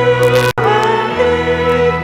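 A hymn sung by voices over a sustained accompaniment of held bass notes, with a momentary dropout in the sound about half a second in.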